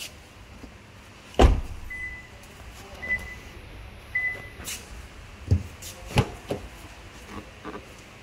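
A car door thumps shut, then three short high beeps come about a second apart, followed by a few sharper knocks and clicks.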